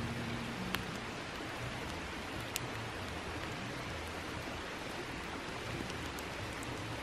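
Wood campfire crackling: a steady hiss with a few sharp pops, the clearest about a second in and near the middle.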